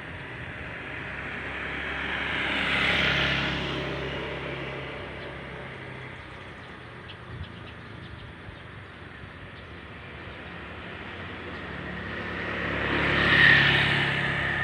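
Two vehicles passing by on a road one after another, each swelling up and fading away, the first about three seconds in and the louder second one near the end.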